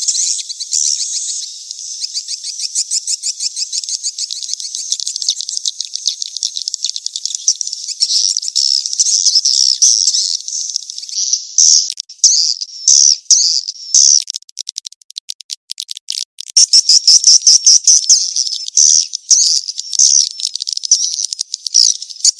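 Swiftlet calls from a swiftlet-farming lure recording: dense, rapid high-pitched chirping and twittering, the mating-chase call used to draw swiftlets into a nesting house. Partway through the twittering breaks into short separate bursts with gaps, then runs on continuously again.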